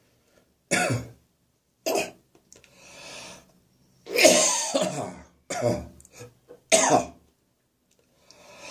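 A person's coughing fit caused by acid reflux in the throat: about five harsh coughs, with a breath drawn in between the second and third.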